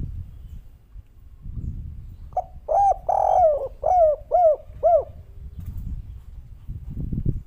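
Spotted dove (derkuku) cooing one 'kuk 3' phrase: about six arching coos over some two and a half seconds, a long drawn coo in the middle followed by three short ones. A low rumble of wind or handling noise runs underneath.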